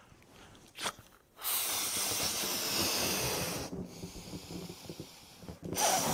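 A man blowing up a rubber balloon by mouth, his breath hissing into it. A long blow starts about a second and a half in, goes softer and duller for a couple of seconds, then comes back strong near the end.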